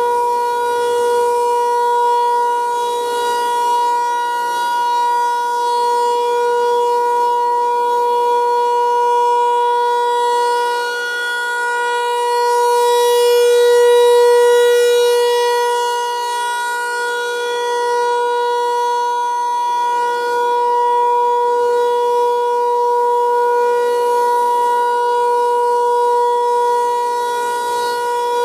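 Federal Signal 508 outdoor warning siren sounding its steady Alert tone in a scheduled test. The tone holds one pitch throughout while its loudness swells and fades as the rotating head turns, loudest about halfway through.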